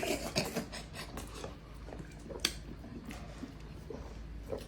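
People eating: chewing and mouth noises with scattered sharp clicks, the clearest about two and a half seconds in and again near the end.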